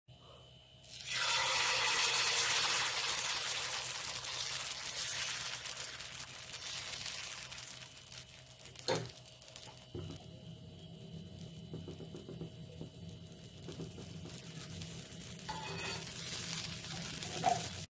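Uthappam batter sizzling on a hot iron tawa, starting suddenly about a second in and slowly fading as it is spread with a ladle. A single sharp metal tap about halfway, then a quieter sizzle over a low steady hum, picking up again near the end.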